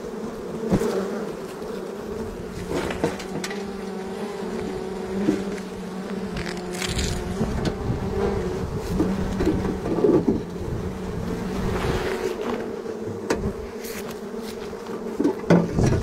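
A large cluster of honeybees buzzing around an exposed wild comb: a steady, dense hum. Short knocks and scrapes sound over it as a knife cuts through the comb.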